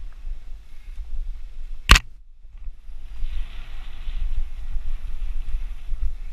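Mountain bike riding fast over a dirt forest trail: a steady low rumble of wind on the camera mic and the bike rattling over the ground, with one sharp, loud knock about two seconds in, then a brief quieter moment.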